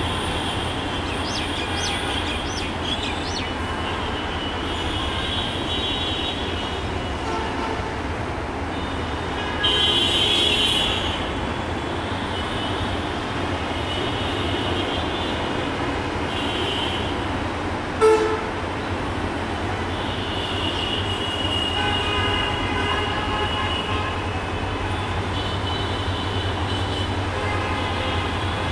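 Diesel train running with a steady low rumble. A high horn sounds, louder for about a second around ten seconds in, and again more faintly later. There is a single sharp knock about eighteen seconds in.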